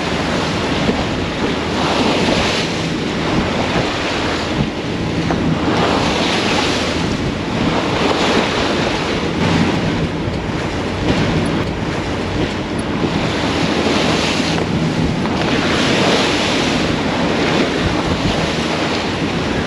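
Sea water rushing and splashing along a yacht's hull, swelling every few seconds, with wind buffeting the microphone and a low steady hum underneath.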